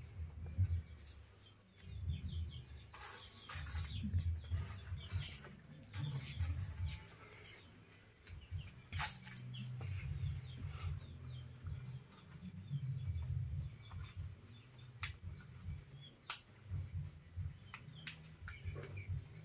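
Banana leaves rustling and crackling as they are handled and folded around sticky rice, with scattered sharp crackles. A low uneven rumble runs underneath, and faint short bird chirps come through now and then.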